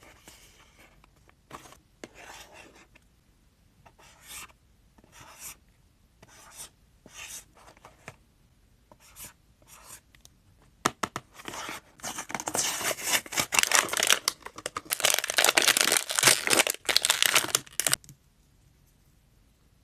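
Packaging of a blind-box surprise toy being handled and torn open: a string of short scratchy rustles, then, from about halfway through, a long stretch of loud tearing and crinkling that stops shortly before the end.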